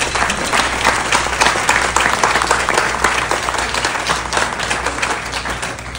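Audience applauding: many hands clapping at once, easing off near the end.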